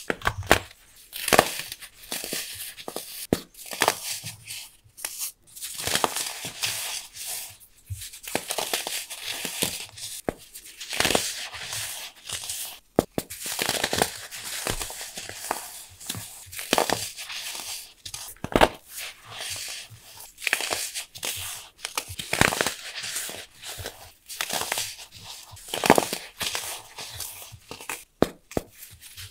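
Pressed pure baking soda bricks crushed and crumbled between the fingers: a continuous run of irregular, dry, sandy crunches.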